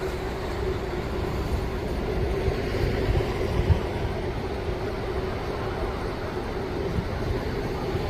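High winter surf rushing and breaking in a steady wash with a low rumble, a steady low hum running underneath, and a brief bump about three and a half seconds in.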